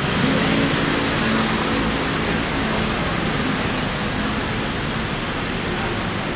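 Steady city street noise: road traffic running, with a faint low engine hum.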